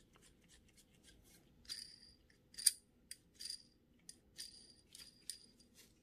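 Small metal bicycle hub parts, the axle, cone and washer of a Shimano Dura-Ace front hub, clinking and ticking against each other as they are handled during assembly. About a dozen light metallic clicks come at uneven intervals, each with a brief high ring, and the sharpest comes a little under three seconds in.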